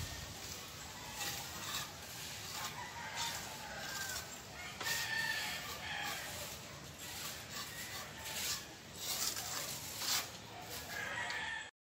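Chickens clucking and a rooster crowing, with repeated short knocks.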